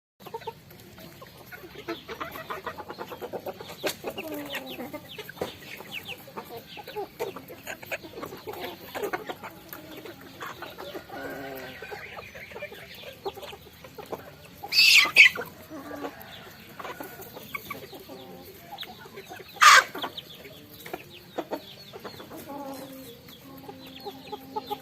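A flock of chickens clucking steadily while pecking at rice, with many small quick ticks from the pecking. Twice, a little past halfway and again a few seconds later, a much louder short high-pitched squawk stands out.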